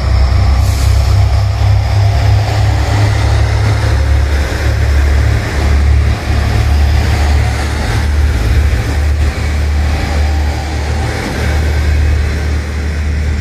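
JR Shikoku 1200-type diesel railcar pulling out of the station under power, its engine giving a steady low drone with wheel and running noise that eases off toward the end.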